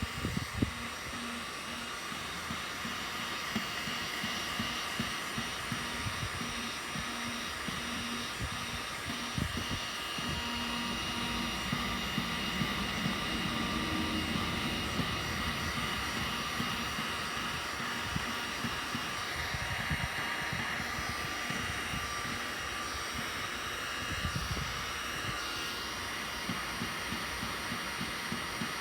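Electric heat gun running steadily, a hiss of blown air with a faint high whine, as it heats the plastic hull to smooth out scratches. An uneven low rumble sits underneath.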